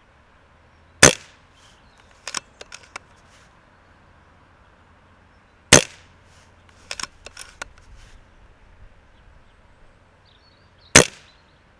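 Three shots from a BRK Brocock Ghost PCP bullpup air rifle, about five seconds apart. The first two are each followed about a second later by a few quick, fainter clicks as the action is cycled for the next pellet.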